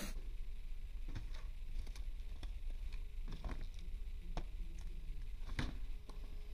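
Handling noise from colourful plastic storage drawers being pulled open and rummaged through: scattered light clicks and knocks of plastic, about seven of them, the sharpest about five and a half seconds in, over a steady low rumble.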